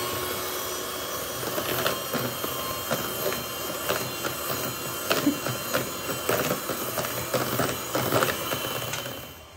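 Electric hand mixer running at a steady speed, beating egg, sugar and oil into batter, its beaters knocking against the bowl now and then. The motor cuts off near the end.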